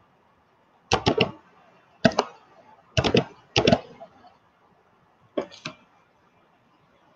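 Sharp clicks in five quick bunches of two or three, each bunch loud against the quiet between them.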